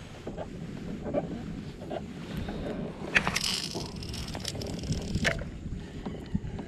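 A spinning rod and reel being cast from a kayak: a few sharp clicks and a short swish around the middle, over a steady low background noise.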